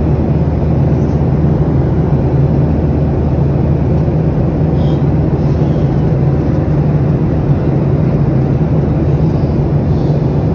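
Steady drone inside an airliner's passenger cabin: engine and airflow noise with a strong, constant low hum.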